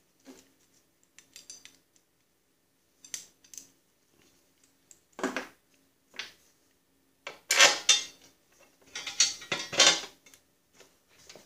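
Steel parts clinking and clattering as they are handled and fitted: a tie rod going into a Snapper rear-engine rider's steering. Light clicks at first, then louder, irregular clanks in the second half.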